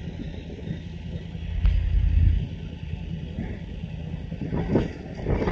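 Adventure motorcycles riding on a gravel road, heard as a low engine rumble mixed with wind buffeting the microphone; the sound grows louder near the end as the bikes come closer.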